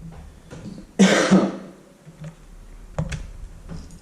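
A man clears his throat in two quick bursts about a second in, followed by a sharp click about three seconds in.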